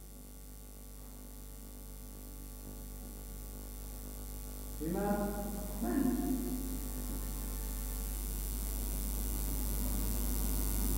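Steady low electrical mains hum that grows slowly louder, with two short murmurs from a man's voice about five and six seconds in.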